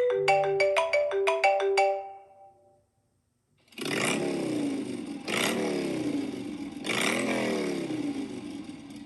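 Two iPhone ringtones. First a quick run of short, plucked, chime-like notes fading out after about two and a half seconds. Then, after a brief silence, a noisy electronic tone that sweeps downward in pitch, starting three times about a second and a half apart and fading at the end.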